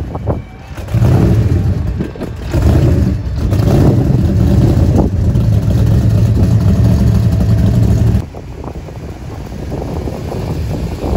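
Classic C3 Corvette's V8 engine rumbling at low speed, loud and steady with small swells of throttle. About eight seconds in it cuts off abruptly and a quieter engine sound of another classic car driving past follows, with wind noise on the microphone.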